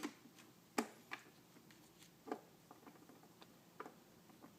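Scattered light clicks and taps of a screwdriver and small screws against the plastic battery door of a robot vacuum as the door is screwed back on. There are about five distinct clicks with fainter ticks between them.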